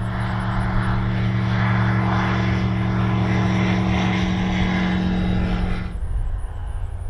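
Light single-engine propeller bush plane flying low, its engine running steadily at an even pitch with propeller noise. About six seconds in the sound drops suddenly to a quieter, more distant engine drone.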